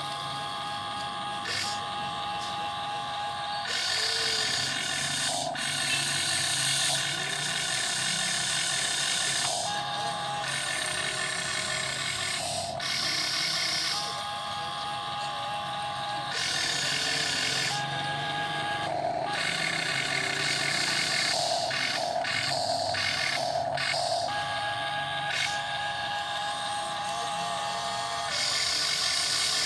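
Motors of a radio-controlled model excavator whining as its functions are worked. The whine and a high hiss start, stop and change pitch in stretches of a few seconds.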